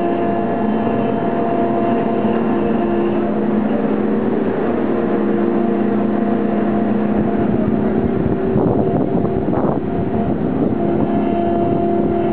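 Heavy crane machinery running with a steady drone and several steady tones while the spreader lifts a container, with a rougher, noisier stretch about eight to ten seconds in.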